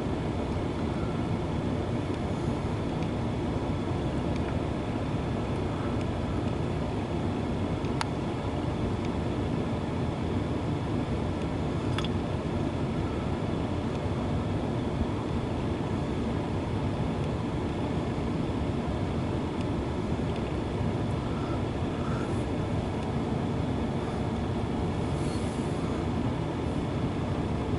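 Steady rolling rumble of empty autorack freight cars on the rails as the end of the train pulls away, with two short sharp clicks, the first about eight seconds in and the second four seconds later.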